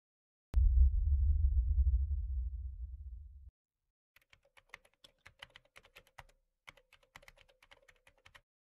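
A deep, low boom hits about half a second in, fades over about three seconds and cuts off abruptly. Then comes a keyboard-typing sound effect: rapid key clicks in two runs with a short break.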